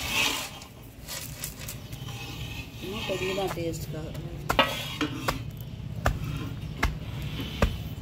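Kitchen utensils knocking and clattering while food is worked in a vessel, with sharp knocks about every three-quarters of a second in the second half.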